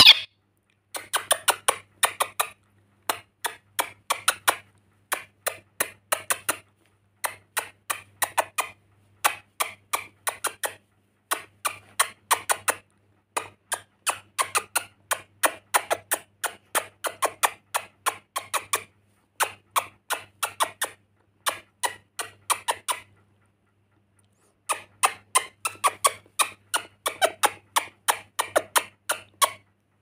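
Rainbow lorikeet chattering in rapid runs of short squeaky clicks, in clusters about once a second, with a pause of a second or two about three-quarters of the way through.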